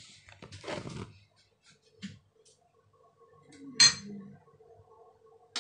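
Metal kitchen utensils handled against a pan and plate on the stove: a scuffle about half a second in, a light knock near two seconds, and a sharp ringing clink near four seconds, the loudest. A faint steady hum sets in a little after three seconds.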